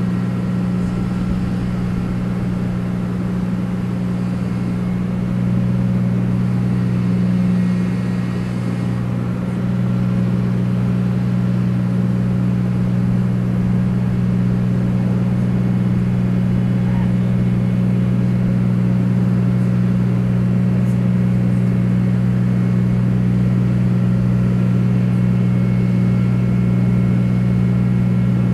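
A large engine running steadily, a low, even hum that does not change pace.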